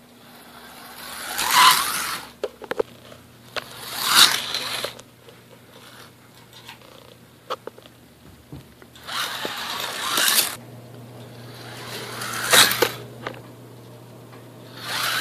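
Electric slot cars whirring round a track, passing four times, each pass swelling and fading away, with scattered sharp clicks between passes and a steady low hum underneath.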